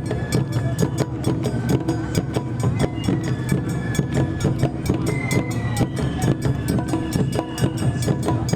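Music with a fast, steady beat of sharp strokes and short high held melody notes.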